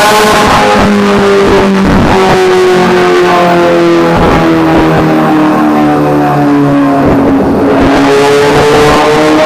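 Honda CBR1000RR-R SP's inline-four engine running hard on a dynamometer, its note slowly falling in pitch, then climbing again near the end.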